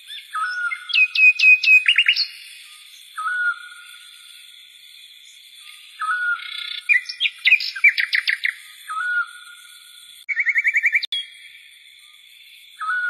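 Birds singing. A short whistled note recurs every few seconds, between quick runs of chirps. A fast, even trill comes about ten seconds in.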